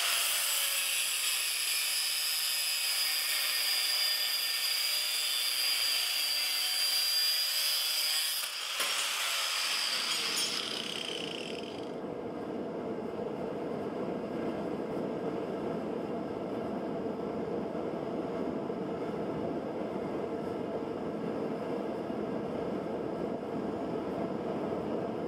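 Angle grinder with a thin cut-off disc cutting through rusty steel flat bar: a steady high whine with the hiss of the cut. About ten seconds in it winds down and gives way to a steady rushing roar, the gas forge's burner running.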